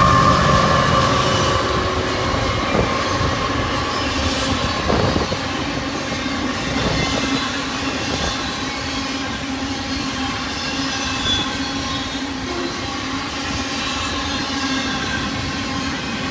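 Union Pacific double-stack intermodal freight train passing at speed. Steady rumble of steel wheels on rail with a few faint clicks. Tones from the trailing diesel locomotives fade over the first two seconds as the container cars roll by.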